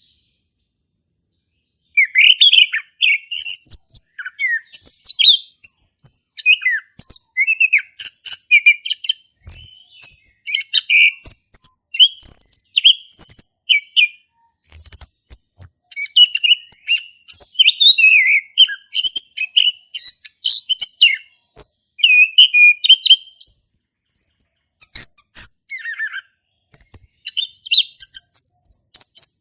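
Male chestnut-capped thrush (anis kembang) in full song: a fast, unbroken run of varied whistled and chattering phrases, starting about two seconds in.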